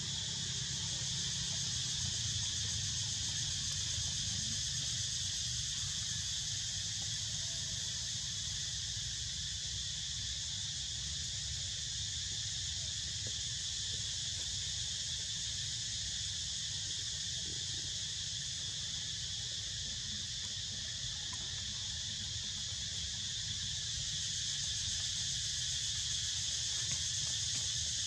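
Steady chorus of insects, a continuous high-pitched buzz that holds an even level throughout, with a low rumble underneath.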